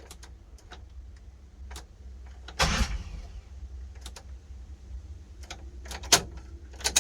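2006 Chevrolet Impala failing to start: irregular clicks and two short bursts as the starter is tried, over a steady low hum. The owner suspects a bad ground wire.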